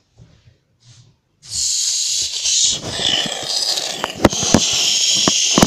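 Small toy quadcopter's propellers whirring, starting abruptly about a second and a half in after near silence, with a few sharp knocks near the end.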